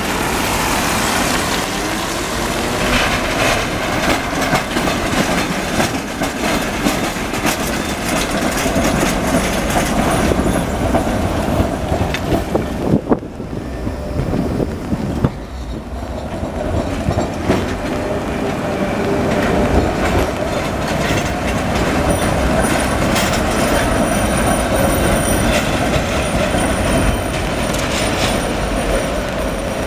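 Gothenburg M28/M29 high-floor trams passing close by over wet street track, wheels clattering over rail joints and points. A sustained whine runs through, and thin high wheel squeal comes in during the second half.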